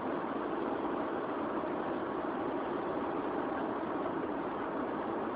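Steady, unchanging cabin noise of a passenger airliner: the even rush of the aircraft's engines and air system, with no break or change.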